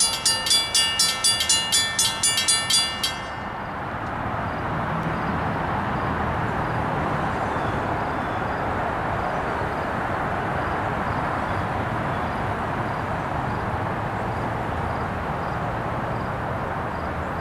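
Railroad grade-crossing bell ringing fast, about four strikes a second, and stopping after about three seconds. It is followed by the steady rushing noise of an approaching SEPTA Silverliner IV electric commuter train.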